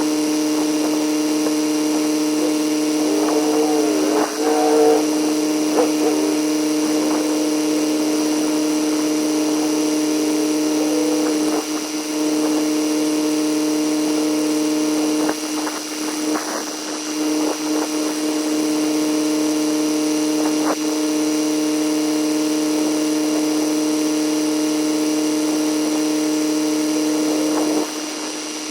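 Tractor engine running steadily at a constant speed, with a few short knocks and some wavering sounds a few seconds in.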